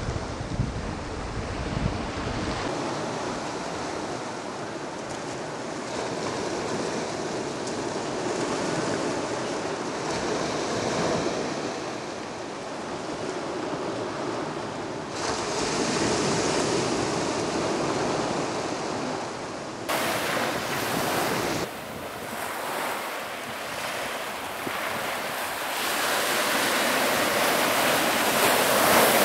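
Sea surf: a steady rush of waves washing and breaking. It changes abruptly several times where the shots cut, and swells louder near the end.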